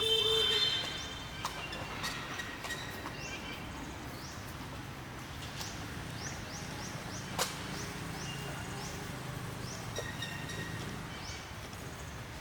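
Outdoor ambience with many short, high rising chirps from small birds scattered throughout. A louder call with several held tones comes at the very start, and a single sharp click about seven seconds in.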